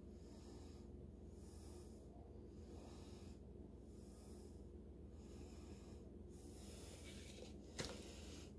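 Faint, slow breathing close to the microphone, swelling and fading about once a second. Near the end comes one sharp tap as a plastic mixing cup is set down on the newspaper-covered table.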